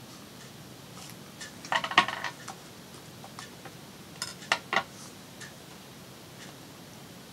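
Craft scissors clinking and clicking as they are handled and put down: a short rattle of metallic clinks about two seconds in, then three sharp clicks a little past the middle.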